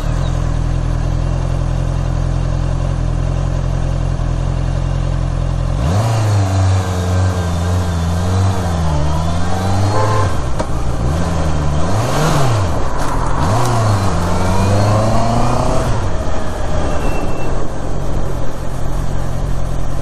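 Honda CBR650R's inline-four engine idling steadily, then pulling away about six seconds in, the revs rising and falling several times over the next ten seconds before settling into a steady low-speed run.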